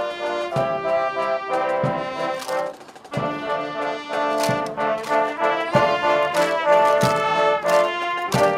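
Background music led by brass instruments over a steady beat, with a brief break about three seconds in.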